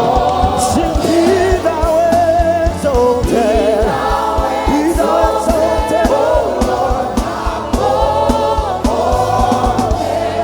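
Gospel worship song: a choir of voices singing, with a backing band on bass and a steady drum beat.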